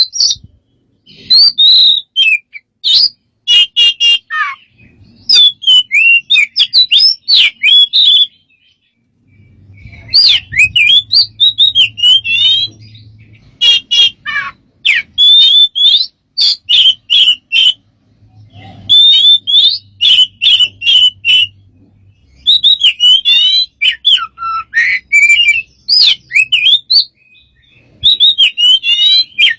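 A bird calling in a rapid, varied string of sliding whistles, chirps and sharp clicks, in bursts of a few seconds separated by short pauses.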